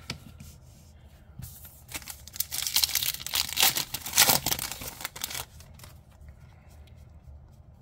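Foil booster pack wrapper crinkling and tearing as it is opened by hand, a dense crackle starting about two seconds in and lasting about three and a half seconds.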